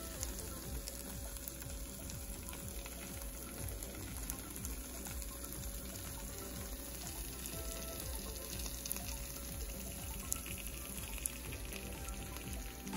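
Grilled cheese sandwiches frying in melted butter in a pan: a steady sizzle with fine, quick crackles.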